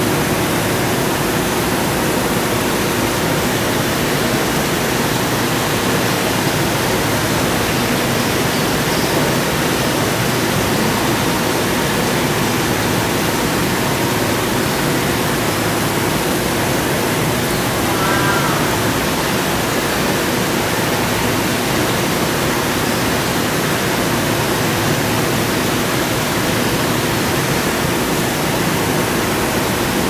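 Steady, unbroken rush of running water. A brief faint high sound stands out about eighteen seconds in.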